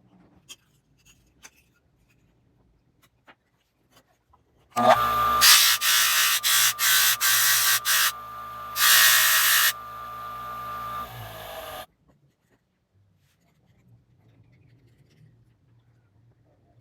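A handheld electric power tool working wood: a steady motor hum with loud rasping bursts as it bites in, coming and going in short strokes, about five seconds in. It stops abruptly, and a few faint ticks come before it.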